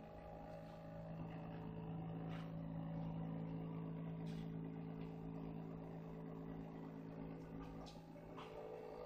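Electric motor of a battery-powered vacuum glass lifter running with a steady hum, swelling over the first few seconds and then holding, with a few light clicks.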